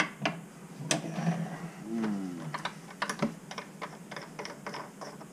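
Irregular run of small sharp clicks and taps as hands work the handle and fittings of a single-handle kitchen faucet.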